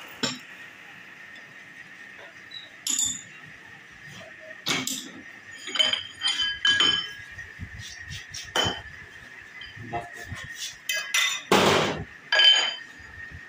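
Scattered metal-on-metal clinks and knocks, about a dozen with short ringing, from tools and a steel motorcycle fork tube being handled at a metal lathe, with a longer, louder clatter near the end. A faint steady high tone runs underneath.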